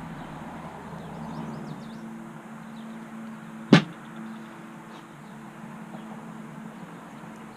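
One sharp click or knock a little under four seconds in, over a steady low hum.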